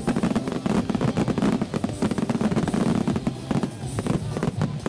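Fireworks display: a dense barrage of aerial shells bursting, the bangs following one another many times a second over a steady low rumble.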